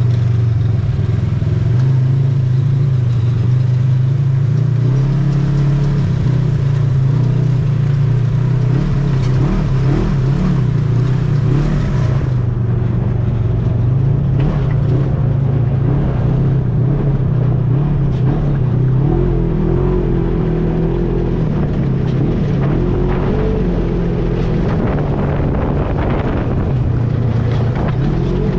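ATV engine running steadily under way, with the low drone wavering slightly in pitch and a rough rumble beneath it.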